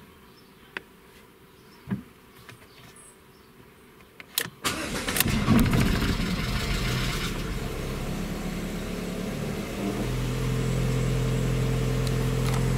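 Lada 1.8-litre VAZ-21179 sixteen-valve four-cylinder engine starting: a few faint clicks, then about four and a half seconds in it cranks briefly and catches. It settles into a steady idle, at higher revs for the first couple of seconds. This is the first start after the cam timing was reset.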